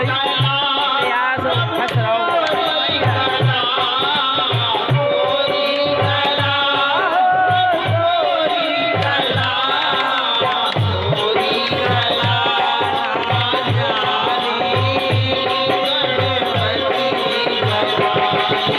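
Bundeli devotional folk music: a wavering melody line over a steady hand-drum beat.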